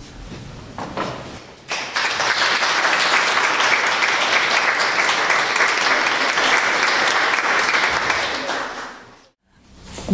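Audience applauding, starting about two seconds in, after a violin piece ends, and fading away near the end.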